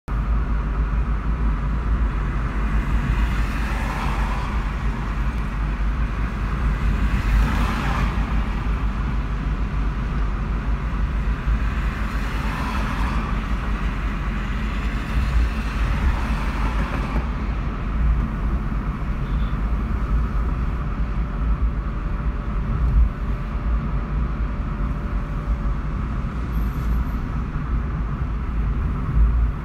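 Road noise inside a moving car: a steady deep rumble of engine and tyres with a hiss over it that swells briefly a few times, about 4, 8, 13 and 16 seconds in.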